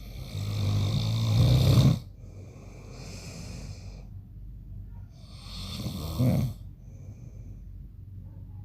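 A man snoring in his sleep: two loud snores about four seconds apart, each cut off sharply and followed by a softer, hissing breath.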